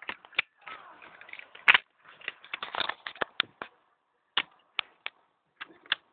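Hard plastic toy pieces of a Dino Megazord being handled and fitted together: a run of clicks and clatters with one loud snap about a second and a half in, then a few separate clicks.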